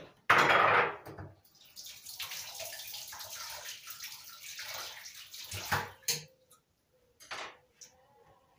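Water running from a kitchen tap for about four seconds as an even rush, after a short louder gush near the start. A few brief knocks or splashes follow near the end.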